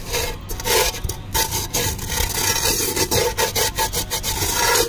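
Fingers rubbing and scraping burnt-on rice crust inside a cooking pot: a gritty scratching in quick, repeated strokes. The charred layer is loosening and coming off under bare fingers.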